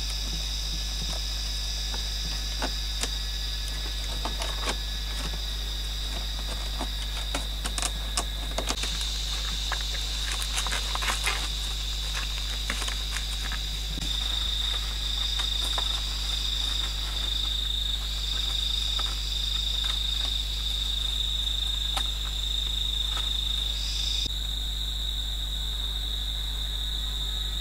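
Forest insects, crickets or cicadas, keeping up a steady high-pitched drone, with one call pulsing in regular beats from about halfway in. Scattered crackling and rustling of dry palm leaves being handled comes in the first half.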